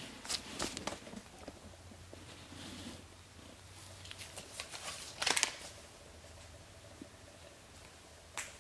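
Light handling noises at a workbench: scattered soft clicks and rustles, with a louder rustle about five seconds in, over a faint low hum.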